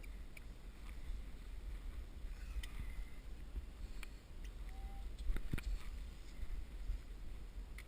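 Wind buffeting the microphone, a steady low rumble, with scattered sharp clicks and knocks, the loudest about five and a half seconds in.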